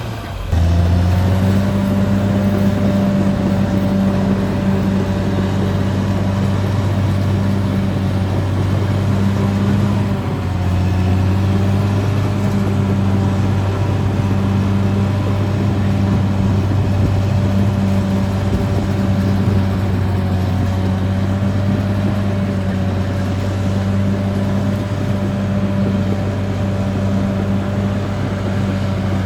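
Caterpillar D6R XL bulldozer's diesel engine running steadily as the machine travels, a deep drone with a fainter steady whine above it. The engine note dips briefly about ten seconds in, then settles again.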